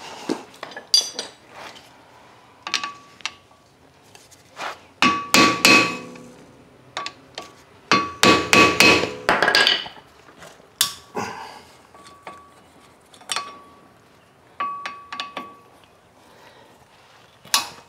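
Hammer blows on a steel brake rotor and hub to knock the rotor loose: sharp metallic clanks, each leaving a short ringing tone. They come in several quick clusters with pauses between.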